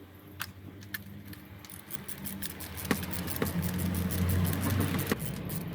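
Ratchet on a spark plug socket clicking in quick runs as the old spark plugs are worked loose, with the clicks coming thicker from about halfway through. A low rumble grows steadily louder underneath.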